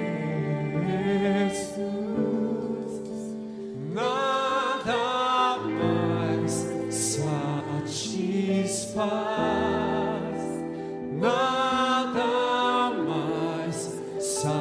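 Live worship music: a band plays sustained chords under singing voices, with cymbal strokes.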